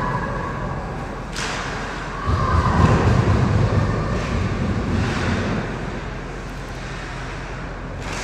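Ice hockey rink sounds during play: a sharp knock about a second and a half in, then a low rumble lasting a few seconds, over a steady background noise.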